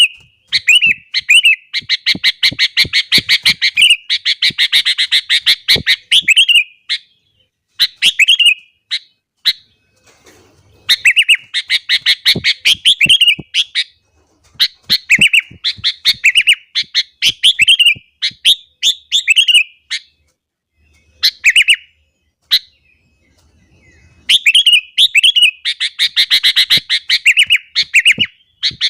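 Sooty-headed bulbul singing loudly in bouts of fast, repeated chattering notes, each bout lasting a few seconds with short pauses between.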